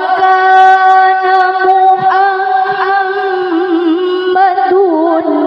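A woman's voice reciting the Qur'an in the melodic qari'ah style through a microphone, holding one long high note for about the first two seconds, then starting a new phrase with wavering ornamented turns.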